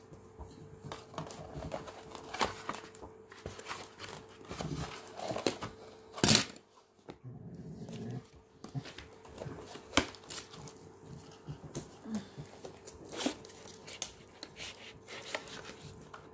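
Packaging and accessories being handled during an unboxing: scattered clicks, taps and rustles, with one loud sharp knock about six seconds in.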